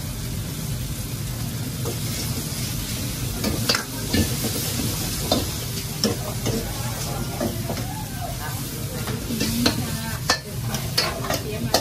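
Stir-frying in woks: food sizzling while metal ladles stir, scrape and knock against the woks. Irregular sharp knocks come more often after the first few seconds, over a steady low rumble.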